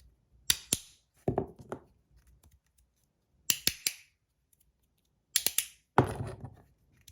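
Green 3D-printed magnetic two-click haptic slider fidget being slid back and forth: its magnets snap the plastic plates into place with sharp clicks, coming in about five short groups of quick double and triple clicks.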